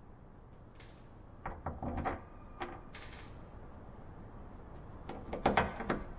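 Scattered light knocks and clicks of hand work against a plywood panel: a screw and a cordless drill being handled at freshly countersunk screw holes. There is a few-second lull in the middle and a cluster of sharper knocks near the end.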